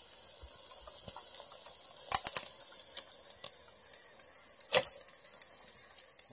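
Chicken tenders sizzling on a wire grill grate over campfire embers: a steady hiss broken by sharp cracks, a quick cluster about two seconds in and one loud crack near five seconds.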